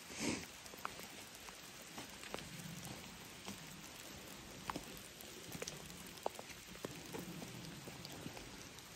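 Rain falling in a wet forest: a steady faint hiss with scattered single drops striking leaves and ground. A brief louder swish comes about a third of a second in.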